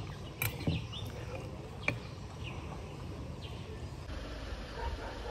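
Quiet background ambience with a steady low hum, faint short chirps and a few light clicks.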